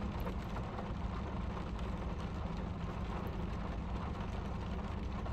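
Steady low engine hum and road noise inside a car's cabin.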